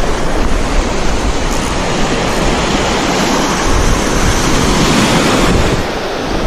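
Small waves washing up the beach in a steady rush of surf, with some wind on the microphone.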